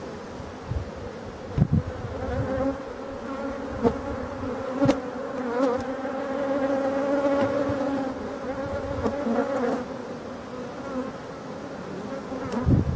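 Honeybees buzzing steadily over an open hive as its frames are lifted out for inspection, with a few sharp clicks of the metal hive tool against the wooden frames.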